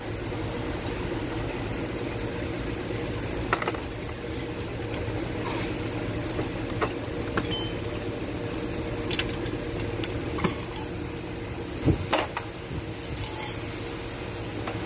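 Metal tools and engine parts clinking irregularly, about eight sharp clinks, during hand disassembly of an engine, over a steady fan-like hum.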